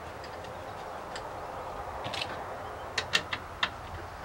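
A few sharp metal clicks, irregularly spaced, in the second half: a hand ratchet wrench being worked on a bolt in a truck frame.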